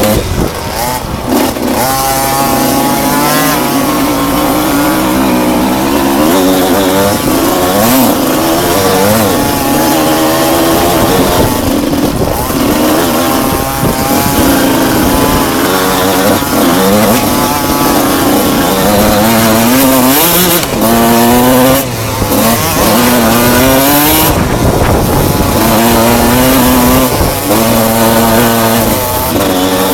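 Enduro motorcycle engine revving hard and easing off again and again, its pitch climbing and falling with the throttle and gear changes, with short lulls every few seconds.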